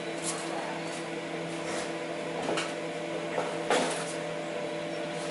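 A steady mechanical hum, with a few light knocks and clinks, the loudest just under four seconds in.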